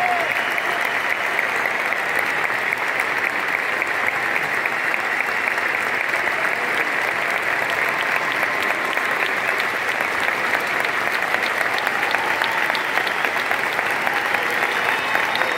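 Large concert audience applauding steadily, with a few voices calling out near the start and near the end.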